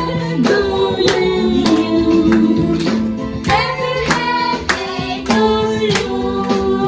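Music: a song with a sung voice over a steady beat.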